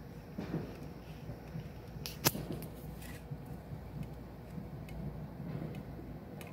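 Fireworks going off: one sharp bang about two seconds in, followed by a few fainter pops.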